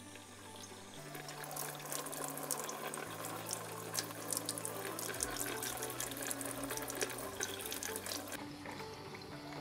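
Cold water running from a kitchen faucet and splashing off a salmon fillet held in the stream into a stainless steel sink, from about a second in until it eases off near the end.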